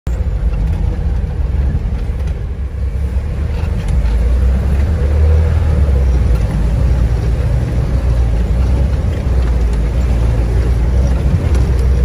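Off-road vehicle driving over rough ground and wading into a fast river, heard from inside the cab: a steady low rumble of engine and running gear that grows louder about four seconds in.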